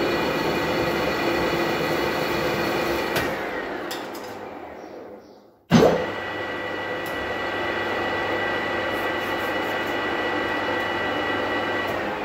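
A manual lathe's spindle and gear train running with a steady whine during a single-point ACME thread-cutting pass. About three seconds in it winds down to near quiet. A sharp clunk follows as the drive engages again, and the lathe runs steadily once more.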